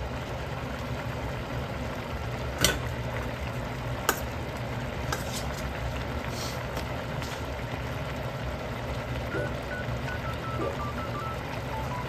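Steady low rumble with a couple of sharp clicks, then from about nine seconds in a run of short electronic beeps stepping up and down in pitch.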